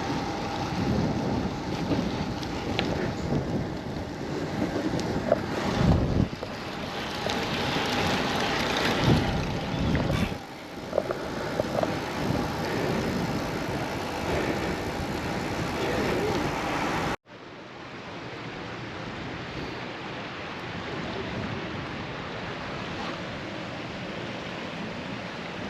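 Wind buffeting the microphone with rolling road noise while riding a steel road bicycle. About two-thirds of the way through it cuts off abruptly to a quieter, steady hiss.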